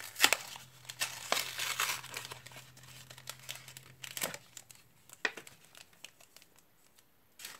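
Foil wrapper of a Yu-Gi-Oh booster pack crinkling as it is handled and torn open by hand: a close run of crackles over the first couple of seconds, then a few scattered crinkles.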